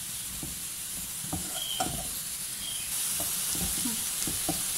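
Spatula scraping and stirring sliced onions, green chillies and spice powders in a nonstick pan while the mixture sizzles steadily as it is sautéed until roasted. The sizzle gets a little louder about three seconds in.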